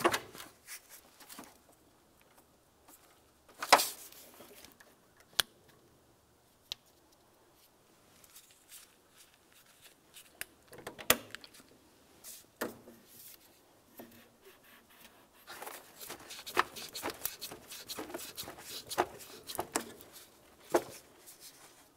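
Hand work on engine coolant hoses and their spring clamps at a thermostat housing: scattered sharp clicks and knocks of the hose clamp pliers and clamps, with a denser run of clicking and rubbing as a rubber hose is worked off near the end.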